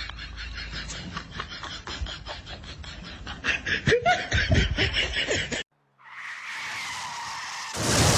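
A fast run of soft clicks and short breathy sounds, with a few brief higher cries about four seconds in. It cuts off, and after a moment of silence waves wash and splash onto a shore, louder near the end.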